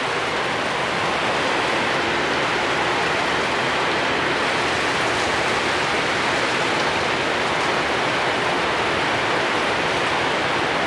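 Heavy rain pouring steadily, a dense even hiss of rain falling on surfaces and running water.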